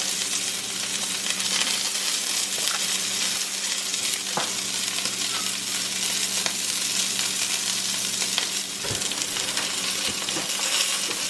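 Spoon spreading creamy chicken pot pie filling over a crisp baked phyllo crust in a pan: a steady hissing scrape with a few light clicks of the spoon against the pan.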